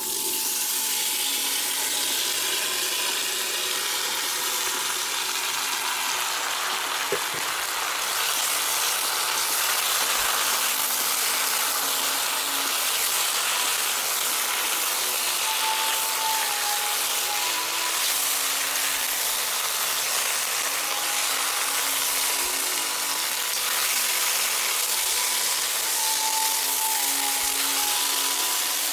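Cubed potatoes sizzling in hot oil in a pan, a loud steady hiss that starts suddenly as they are dropped in, with a metal spatula stirring and scraping through them.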